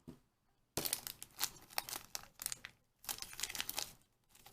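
Plastic blind-pack packaging crinkled and torn open by hand, a busy crackle of small clicks in two stretches with a short pause between them.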